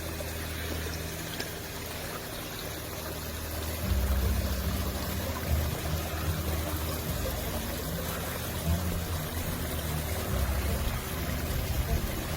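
Water rushing and splashing, with a low hum underneath that grows louder about four seconds in and then shifts up and down in steps.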